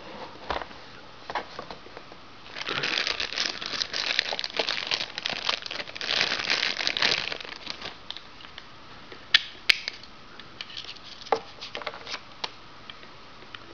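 Thin clear plastic bag crinkling for about five seconds as a battery charger is unwrapped from it. Then a few light, sharp clicks and taps as the bare plastic charger is handled.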